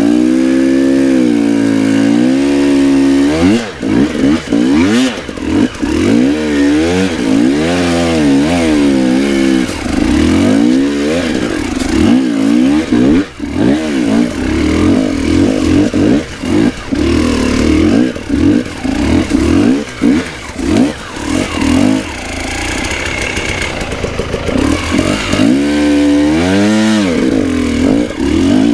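KTM 300 EXC TPI two-stroke enduro motorcycle engine revving up and down repeatedly as the throttle is worked, its pitch rising and falling every second or so.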